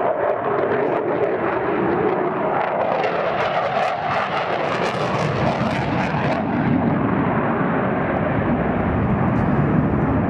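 Jet noise from an RAF Eurofighter Typhoon's two EJ200 turbofans, afterburners lit, during a hard banked display turn: a loud, continuous rumble that grows deeper and a little louder in the second half.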